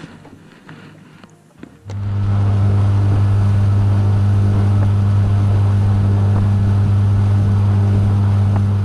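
A boat's outboard motor comes in suddenly about two seconds in and runs loud at a steady, unchanging pitch.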